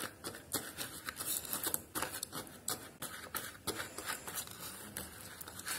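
Pink plastic spoon stirring a gritty sugar-and-honey mixture in a small bowl: soft, irregular scrapes and light taps of the spoon against the bowl.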